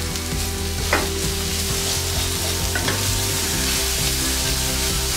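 Onion and ginger-garlic masala sizzling in oil in a nonstick kadai with freshly added ground spices, while a wooden spatula stirs and scrapes through it. There are a couple of light knocks of the spatula, about a second in and again near three seconds.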